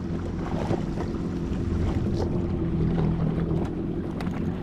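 Jet ski engine idling steadily, with wind noise over the microphone.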